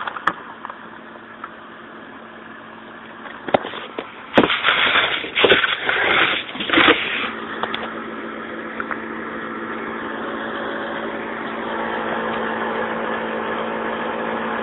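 A cluster of loud, harsh throat-clearing bursts about four seconds in, lasting some three seconds, after a few sharp clicks. A steady mechanical hum with one fixed tone follows and slowly grows louder.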